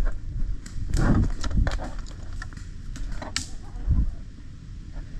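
Rustling movement through brush, with low handling noise and scattered sharp clicks and snaps. The sharpest snap comes about three and a half seconds in.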